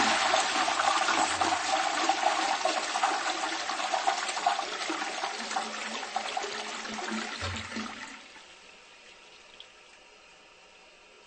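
Toilet flushing: a loud rush of water that slowly eases, with a short low thump near the end, then falls away about eight seconds in to a faint hiss.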